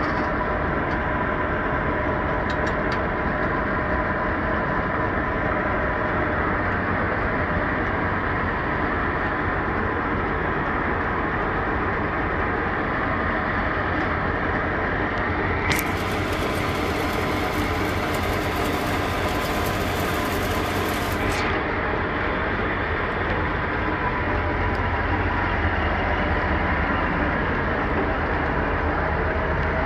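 Bizon Z056 combine harvester's diesel engine running steadily at close range. A high hiss joins for about six seconds midway.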